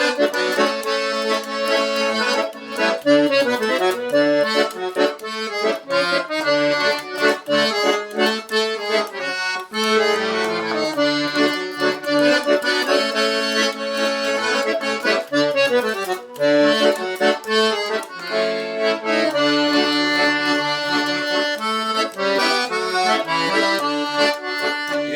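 Instrumental break of a gaúcho vanera, led by piano accordion over a steady dance beat.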